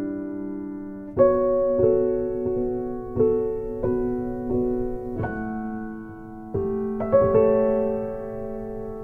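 Background music: slow, gentle piano, with single notes and chords struck every half second to a second and left to ring and fade.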